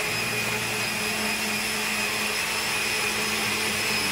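Electric countertop blender running steadily with an even motor whine, blending milk, Oreo cookies, sugar and ice cream into a milkshake.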